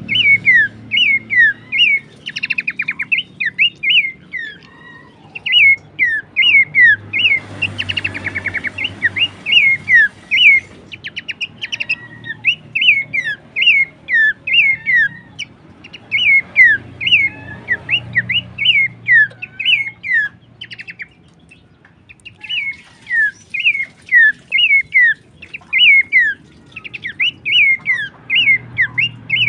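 Horsfield's babbler (pelanduk semak) calling: a steady run of short, downward-sliding whistled notes, two or three a second, broken now and then by a quick rattling trill and a brief pause about two-thirds of the way through.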